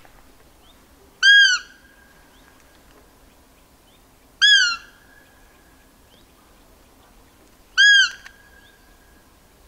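Hand-blown roe deer call (wabik) sounded three times, about three seconds apart: each a short, high squeak that rises and falls with a brief held tail, imitating a roe deer's squeak to lure a buck.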